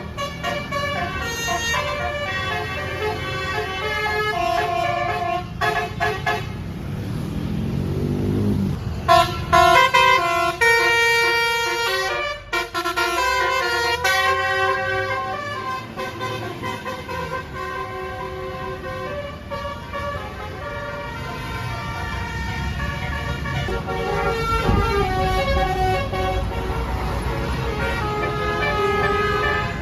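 Basuri telolet multi-tone bus air horns playing tunes note by note, several phrases in turn, the clearest about ten seconds in, over a low engine rumble. A rising sweep comes about seven to nine seconds in.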